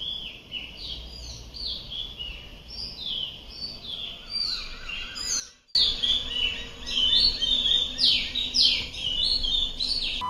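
Birds chirping in a busy chorus of quick, falling chirps that repeat and overlap, broken by a split-second gap a little past the middle.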